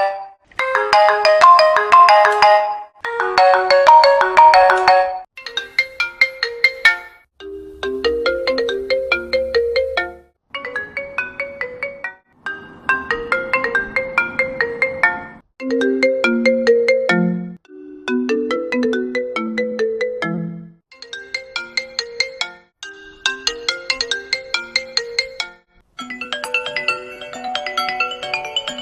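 A run of iPhone ringtones: about a dozen short melodic phrases of quick pitched notes, each two to three seconds long, cut apart by brief gaps and changing in tune and pitch from one to the next.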